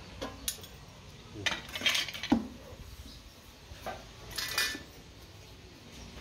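Short metallic clinks and scrapes of sheet steel being cut with hand shears and handled, in a few brief bursts, the loudest about two and a half seconds in.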